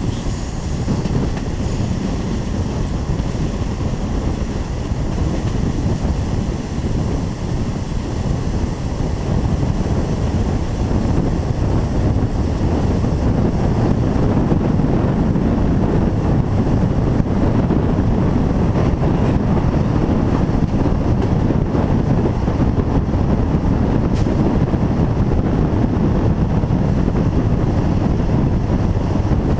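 Wind buffeting a microphone mounted on the outside of a moving passenger train, over the train's rumble on the rails; it grows a little louder after about ten seconds.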